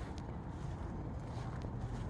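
Footsteps on wet grass over a low, steady outdoor background noise, with a few faint ticks.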